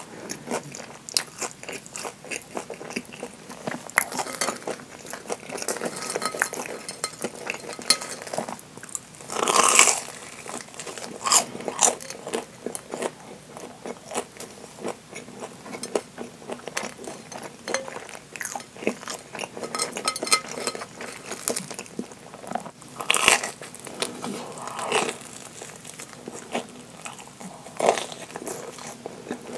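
Crunching and chewing of a deep-fried, breadcrumb-coated Japanese curry bread, with a dense run of small crackles from the crisp crust. Two louder crunchy bites stand out, about a third of the way in and again past two-thirds.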